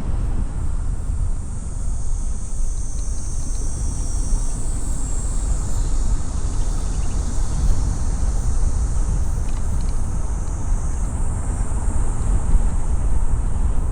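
Steady road and wind rumble from a car driving, with a high insect chirring that swells twice.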